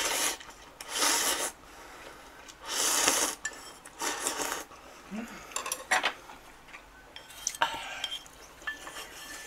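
Ramen noodles and broth slurped from a bowl, three long slurps in the first few seconds, followed by lighter clicks of chopsticks against the bowl.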